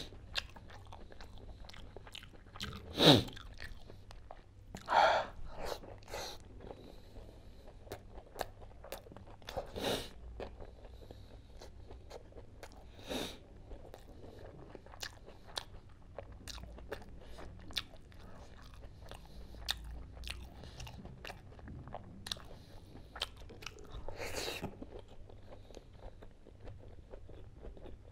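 Close-up chewing and lip-smacking of a person eating curried boiled eggs and chicken by hand, with many small wet clicks and a few louder smacks or slurps spread through.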